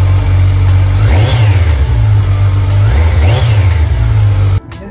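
Kawasaki Versys 1000's inline-four engine idling through its stock side silencer, blipped on the throttle twice, about a second in and again near three seconds, each rev rising and dropping back quickly. The engine sound cuts off suddenly just before the end.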